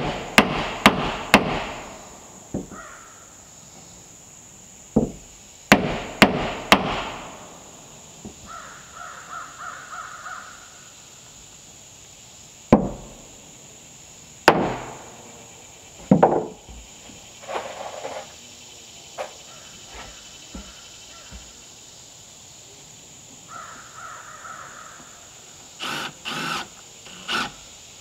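Knocks and taps on wooden boards as a window frame is fitted into a plank-walled outhouse: three or four in quick succession near the start and again about six seconds in, then single knocks further on. Between the knocks a bird calls in short runs of repeated calls.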